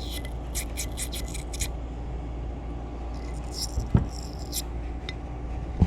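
Quick scraping strokes of a small cleaning brush worked into a passage of an Edelbrock 1406 carburetor, in two short runs, with a dull knock about four seconds in, over a steady low hum.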